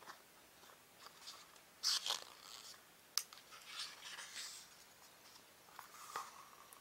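Pages of a small hardcover book being turned by hand: paper rustling in short bursts, with a sharp flick of paper about three seconds in.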